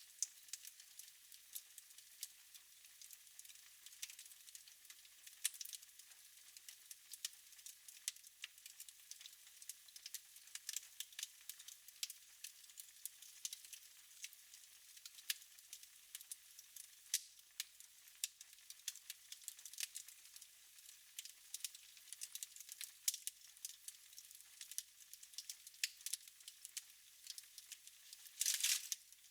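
Wood fire in a fireplace crackling: a steady scatter of small pops and snaps over a faint hiss. Near the end comes one brief, louder rush of noise.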